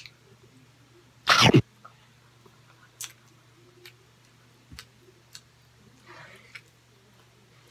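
One loud, short cough from the eater about a second in, followed by a few faint small clicks of eating.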